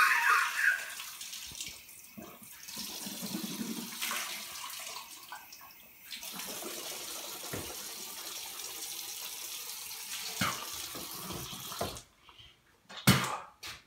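Bathroom sink faucet running water as a man bends to the tap to rinse his mouth; the water shuts off about twelve seconds in.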